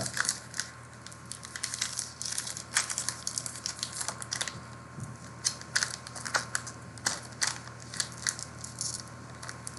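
Crinkling and tearing of a foil wrapper as a pack of football trading cards is opened. The sound comes as irregular rustles and crackles.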